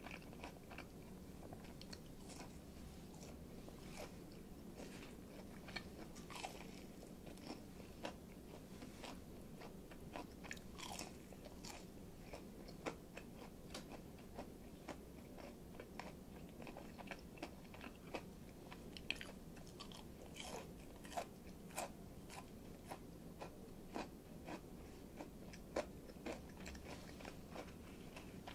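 A person chewing a crisp fried breaded morsel with the mouth close to the microphone: wet chewing broken by many small, irregular crunches.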